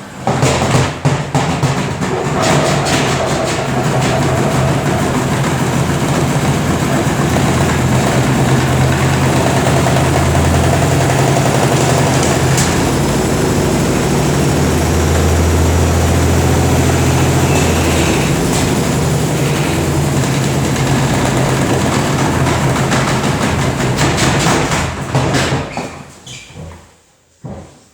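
Samsung washing machine drum spinning with a 2 kg weight inside, the unbalanced load banging and rattling loudly over a steady low hum; it dies down near the end.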